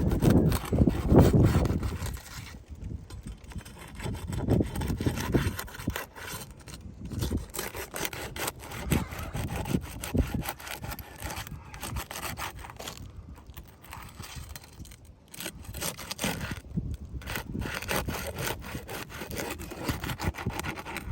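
A steel flat bar scraping and rasping under old asphalt shingles as they are pried loose from the roof, in irregular strokes. Loudest in the first couple of seconds.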